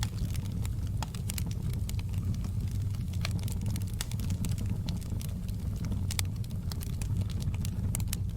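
Wood fire crackling, with many short sharp pops scattered irregularly over a steady low rumble.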